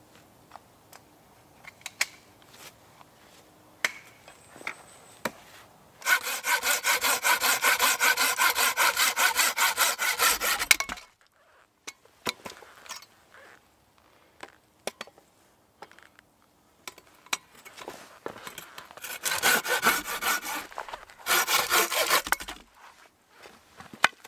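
Hand saw cutting through a stick laid on a wooden chopping block, in quick back-and-forth strokes: one run of about five seconds, then two shorter bursts near the end. Light knocks and handling clicks come between the runs.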